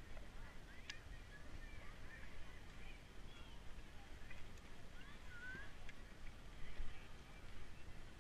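Faint outdoor ambience of a busy ski base: scattered short high chirps and squeaks, a few light clicks, and a low uneven rumble of wind and movement on the helmet camera.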